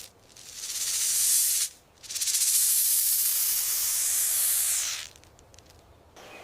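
A viper hissing twice. The first hiss swells over about a second and a half; the second is held for about three seconds, then cuts off.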